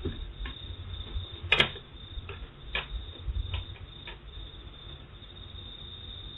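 Light scattered clicks and taps of a car speaker and its plastic mount being handled and turned over, with one sharper click about one and a half seconds in.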